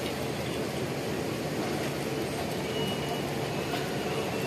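Diesel engines of intercity buses idling: a steady, even rumble.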